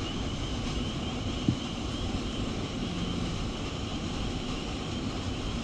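Steady outdoor background noise: a low rumble with a faint, even high hum above it, and one short knock about a second and a half in.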